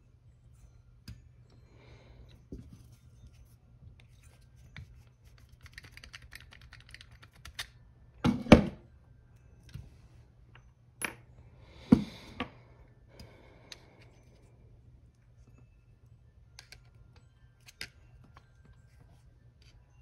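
Small metal parts of a carburetor's throttle linkage clicking and clinking as they are pulled off and handled, with a louder clatter about eight seconds in and a sharp knock about twelve seconds in.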